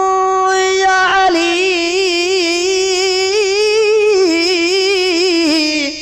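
Solo voice singing a devotional Sindhi qaseeda. It holds one long steady note, then from about a second in breaks into a wavering, ornamented run that slides lower and stops just before the end.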